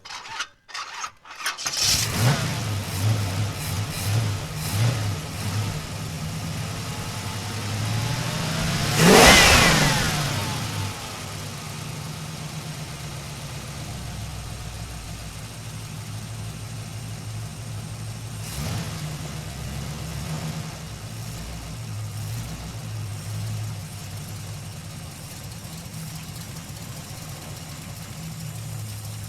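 Truck engine starting after a few short cranks, then running unevenly with small revs. About nine seconds in it revs up sharply and falls back, then settles to a steady idle with a couple of light blips.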